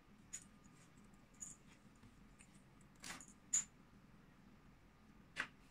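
A few faint, light metallic clicks and clinks, irregularly spaced, some with a brief high ring, the loudest a little past the middle: small metal items being handled.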